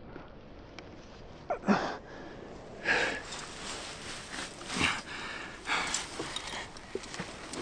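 A man's heavy, gasping breaths, about four of them, the first carrying a short falling groan, as he lies on the ground straining.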